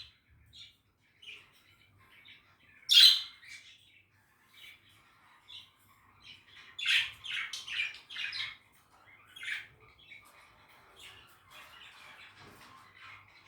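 Budgerigar chirping and squawking in short, sharp calls, with a loud squawk about three seconds in, a quick run of calls around seven to eight seconds, and softer chatter near the end.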